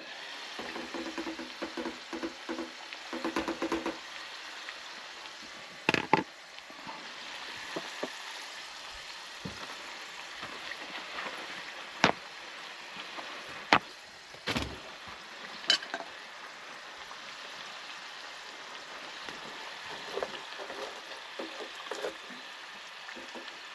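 Potatoes frying in hot oil in a pot, a steady sizzle, with a few sharp knocks and clatter of a lid and fork against the pot.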